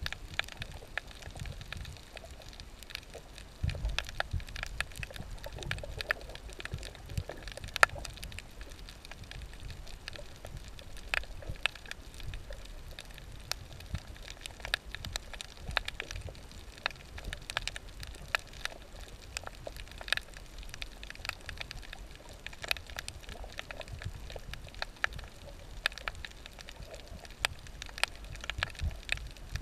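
Underwater reef ambience heard through a GoPro's waterproof housing: a dense, irregular crackle of sharp clicks, typical of snapping shrimp, over a low muffled rumble.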